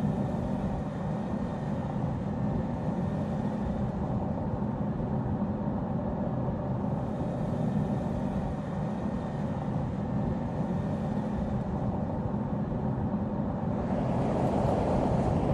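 Audi Q3 SUV driving along a road: steady engine hum and tyre noise, swelling a little near the end.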